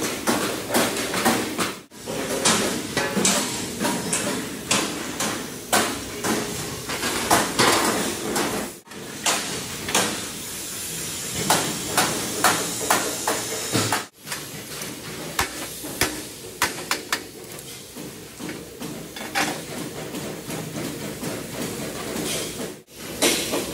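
Irregular hammering and clanking of metal being worked by hand, many sharp strikes over a steady workshop din. The sound cuts out briefly a few times.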